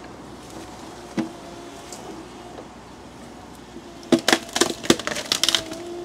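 A tree root snapping as the digger's bucket tears it out of the ground: a quick run of sharp cracks starting about four seconds in and lasting a second or so, over the steady running of the digger's engine.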